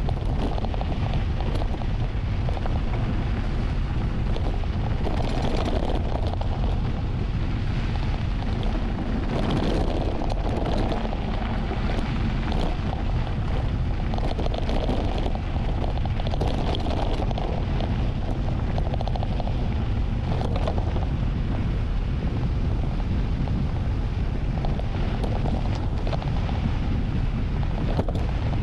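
Heavy wind buffeting the microphone of a mountain bike descending fast, a steady deep rumble with scattered clicks and rattles from the bike over rough ground.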